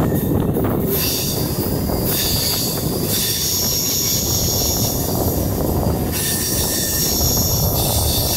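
MEMU electric multiple-unit train running on the rails with a steady rumble. The steel wheels squeal high-pitched in several stretches over it.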